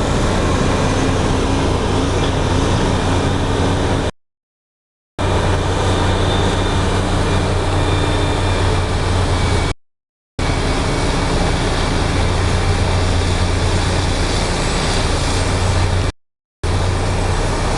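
Heavy diesel machinery running steadily under load, a loud even drone with a strong low hum, cut off by dead silence three times: for about a second near the start and briefly twice later.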